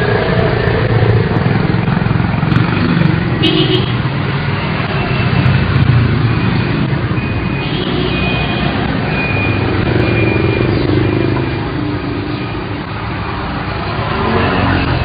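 Steady road traffic noise, with vehicle engines rumbling and a few short high tones in the middle.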